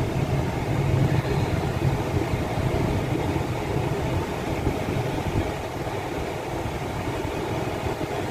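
Car cabin noise while driving: steady engine and road noise heard from inside the car, easing slightly about five and a half seconds in as the car comes up to a red light.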